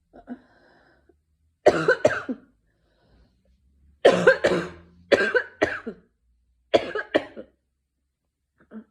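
A person coughing in four bouts of two or three coughs each, a second or two apart, from a sore throat.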